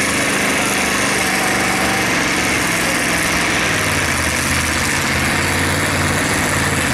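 Fordson diesel tractor engine running flat out under heavy load while pulling a weight-transfer sledge, its pitch sagging slightly about halfway through as the revs drop under the load.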